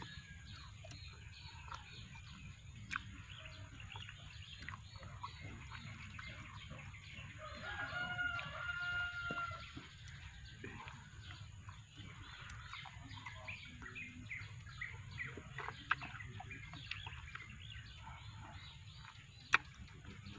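A rooster crows once, about eight seconds in, for around two seconds. Throughout, faint close mouth clicks and smacks of someone eating duhat (Java plum) fruit, with one sharp click near the end.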